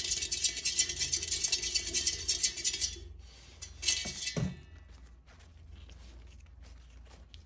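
Plastic exercise wheel spinning and rattling under a prairie dog's running feet, a fast crackling patter that stops about three seconds in. About a second later there is a short sound falling in pitch as she climbs out, then faint rustling and scratching in the fabric bedding.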